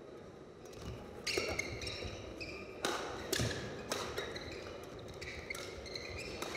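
Badminton doubles rally: rackets striking the shuttlecock in sharp cracks, starting about a second in, with sneakers squeaking on the court floor between hits.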